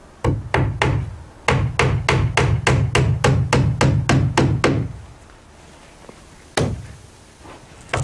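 Claw hammer driving nails into a wooden soffit board: three blows, a short pause, then a fast even run of about a dozen blows at roughly four a second, and later one single blow.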